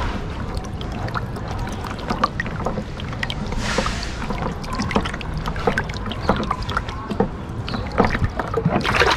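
Water sloshing and splashing in a plastic water tank as a hand works underwater to remove the ball of a float valve, with many small knocks and clicks against the tank and fittings and a brief hissing splash about three and a half seconds in.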